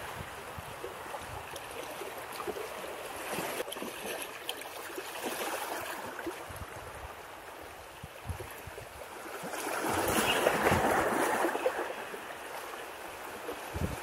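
Small sea waves lapping and washing against the rocks of a seawall, with a louder wash of water about ten seconds in.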